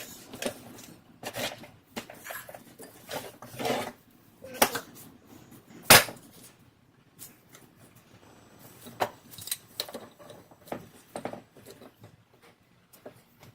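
Scattered clinks and knocks of metal hand tools and parts during truck suspension work, with one loud, sharp clank about six seconds in.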